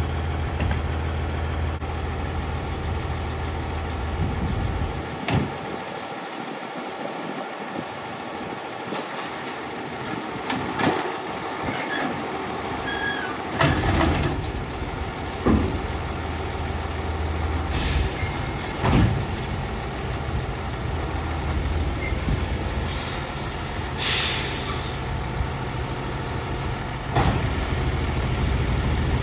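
Autocar ACX garbage truck's diesel engine running while its Heil 7000 automated side-loader arm lifts and tips a cart into the hopper, with repeated clanks and knocks of the cart and body. A short burst of air hiss comes about 24 seconds in.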